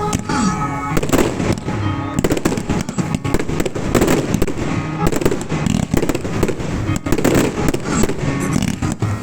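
Fireworks going off in rapid succession, a dense run of bangs and crackles, with music playing along underneath.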